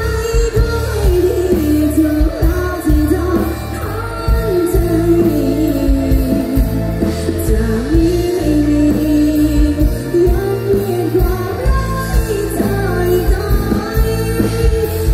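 Live pop band music amplified through stage loudspeakers: a woman singing lead into a microphone over a drum kit and band.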